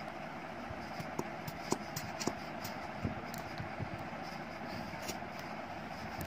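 Steady background hum with a few faint clicks and taps as a plastic glue bottle is squeezed and paper is handled.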